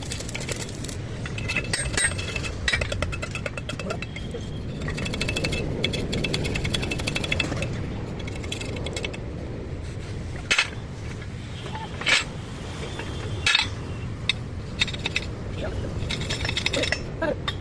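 Metalworking noise in a truck body workshop: rapid runs of metal clicking and clinking, then three sharp metal strikes about a second and a half apart, over a low steady rumble.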